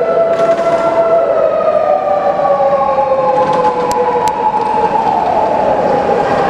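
Japanese fire engine's wail siren, its pitch rising slowly and then falling again, with another siren tone sounding alongside it in the first second.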